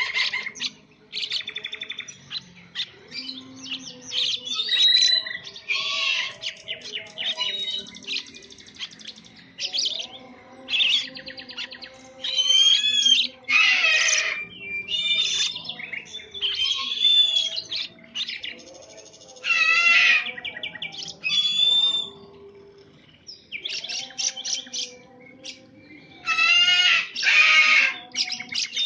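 Songbird singing: a run of varied chirps, whistled slurs and fast trills in short phrases a second or two apart, with the loudest phrases about 13 to 14 seconds in and again near the end. Faint music runs underneath.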